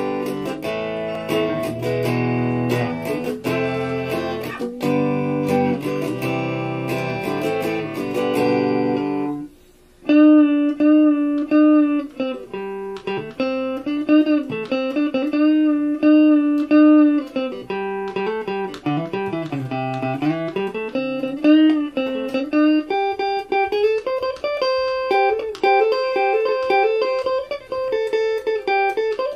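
Stratocaster-style electric guitar being played: strummed chords for about nine seconds, then, after a short break, single-note lead lines with string bends and vibrato.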